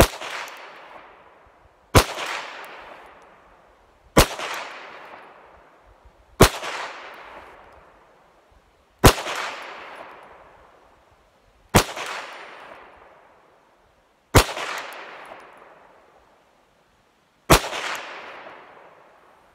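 Calico M100 pistol firing .22 long rifle, eight single shots spaced about two to three seconds apart, each with a long fading echo.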